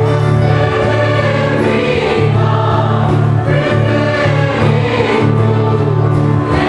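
Mixed choir of men and women singing a Christmas carol, accompanied by an electronic keyboard holding steady bass notes.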